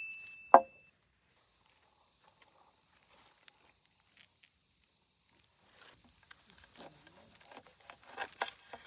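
A steady high-pitched hiss like insects chirring starts abruptly about a second and a half in, with faint small rustles and a few short squeaky calls near the end.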